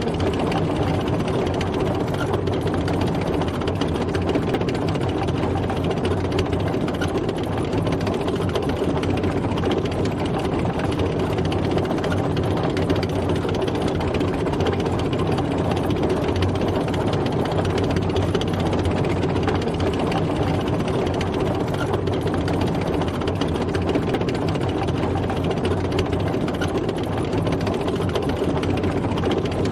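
Tank driving: a heavy engine running steadily under the clatter and rattle of the tracks, at a constant pace.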